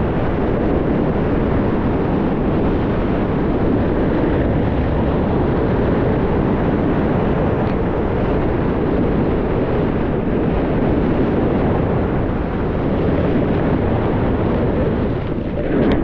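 Steady rush of wind buffeting the microphone of a moving skier, mixed with skis sliding over snow.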